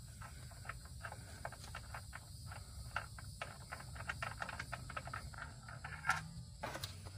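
Faint, irregular small clicks and ticks from the oil drain plug of a 2015 Ram 1500's oil pan as it is unscrewed by hand, with one slightly louder click about six seconds in.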